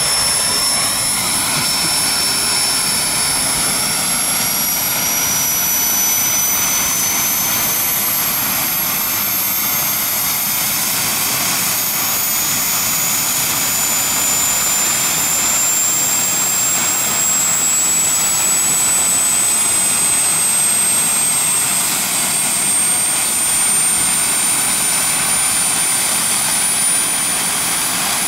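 Jakadofsky Pro 7000 model gas turbine in a scale Lama helicopter running on the ground, a steady rushing hiss with a high whine that climbs slowly and evenly in pitch as the turbine spools up and the main rotor runs up to speed.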